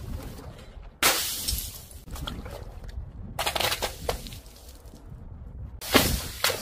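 Liquid-filled balloons bursting and splashing onto paving tiles. A sharp burst with a hissing spray comes about a second in, a cluster of wet splats follows a little past halfway, and another loud burst comes near the end.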